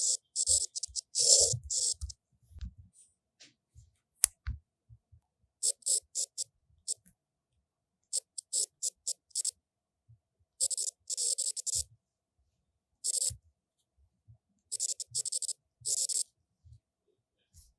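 Samsung S Pen writing sound effect: short scratchy strokes in quick clusters with silent pauses between, as on-screen writing triggers the simulated pen-on-paper sound. Soft low taps come in between the strokes.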